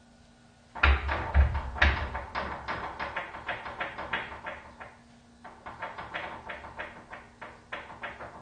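A door that won't open being pushed and rattled in its frame, giving a fast run of knocks and bangs about four a second, heaviest at the start, with a short lull halfway through before the rattling resumes.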